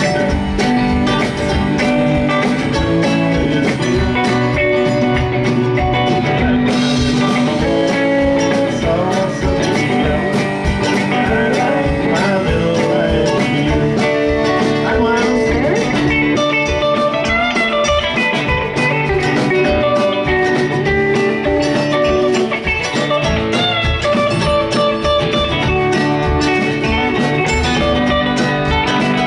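Live band playing a bluesy, country-tinged song led by guitars, over a steady low beat.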